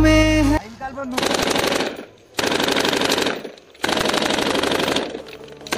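Automatic machine-gun fire in three bursts of about a second each, rapid shots in quick succession. A music track cuts off suddenly just before the first burst.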